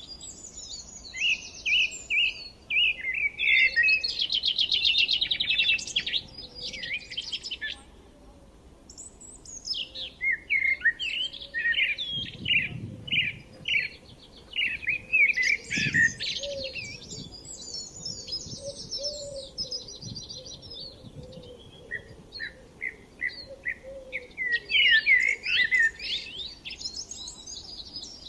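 Several songbirds singing in overlapping phrases of quick chirps and rapid trills, with a brief lull about a quarter of the way in.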